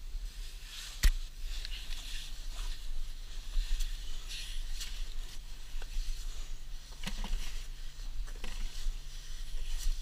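Razor clam digging by hand in wet beach sand: a gloved hand and arm scraping and squishing in a sand hole after a razor clam, with a sharp knock about a second in and smaller ticks along the way. A steady low rumble of wind on the microphone lies under it.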